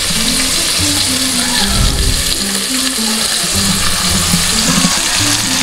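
Coated chicken pieces frying in hot oil: a steady sizzle, with background music playing under it.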